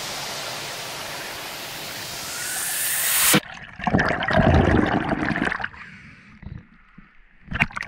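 Water around an underwater action camera: a steady rushing hiss that rises and cuts off suddenly about three seconds in, then loud bubbling and sloshing as the camera comes up through the surface, then light splashes and drips.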